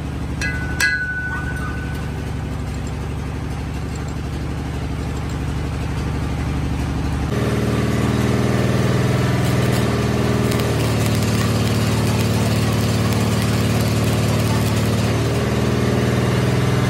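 Steady hum of workshop machinery, with one hammer blow on the steel drive shaft in the lathe about a second in that rings briefly at a high pitch. About seven seconds in the hum changes abruptly to a louder, noisier drone.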